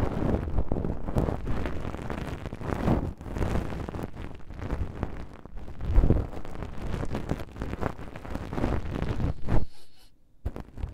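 An ASMR ear-cleaning stick (a feather ear rod) brushing and scraping right against a binaural ear microphone, making dense close-up rustling and scratching that is heavy in the low end. It stops almost to silence about ten seconds in.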